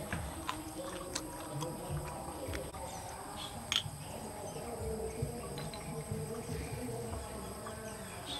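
Steady background of insects chirring, with scattered light clicks and taps from a glass soju bottle and shot glass being handled; the sharpest click comes about a third of the way in.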